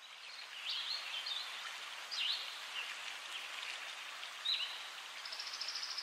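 Countryside ambience: scattered short bird chirps and a brief trill about five seconds in, over a steady even hiss.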